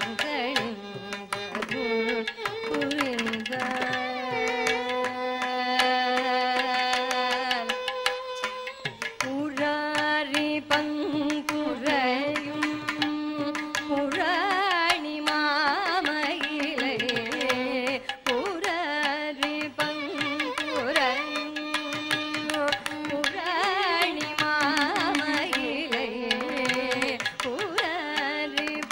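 Carnatic vocal music: a woman singing in raga Kalyani, holding long notes and sliding between pitches, over a tambura drone with drum strokes accompanying her.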